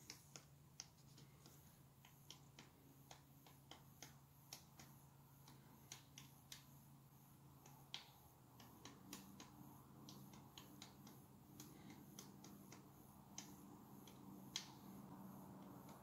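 Pileated woodpecker pecking at a tree trunk: faint, irregular sharp taps, two or three a second, with a few louder ones. A faint low hum runs underneath and grows a little stronger about halfway through.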